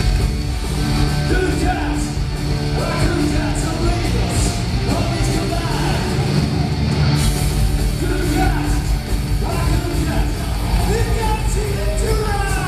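A heavy metal band playing live: distorted electric guitars, bass and drums, with a male lead singer, heard from the audience.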